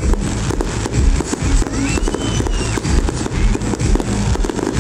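Aerial fireworks shells bursting and crackling, many sharp bangs and crackles in quick succession, over loud background music with a heavy low end.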